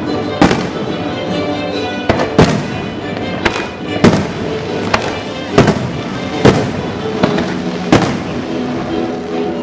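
Fireworks bursting overhead: about ten sharp bangs, irregularly spaced under a second or so apart. Music with sustained notes plays underneath.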